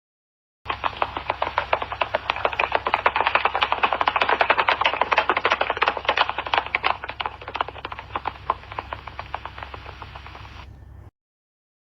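Horse galloping: a fast, dense run of hoofbeats that grows louder, then slowly fades, and cuts off abruptly near the end.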